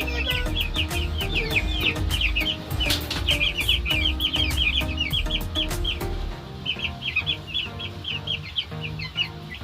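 A crowd of chicks peeping constantly, many short high calls overlapping. A low rumble underneath stops about six seconds in.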